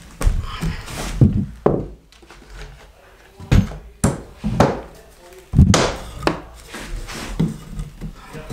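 Irregular wooden knocks and thunks, a dozen or so, as lumber is handled and knocked against the floor joists and plywood subfloor while 2x4 blocking is fitted.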